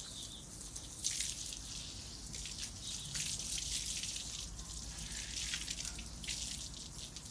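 Water spraying and splashing onto a dog's coat in a cooling shower, a steady hiss broken by uneven splatters.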